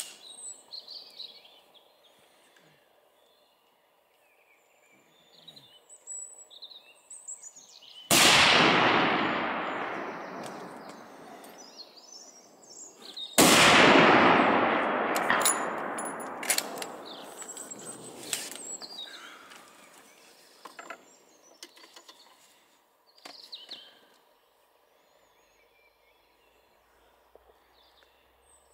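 Two rifle shots from scoped long-range precision rifles, about five seconds apart, each followed by a long echo that dies away over several seconds. A few light sharp clicks follow the second shot.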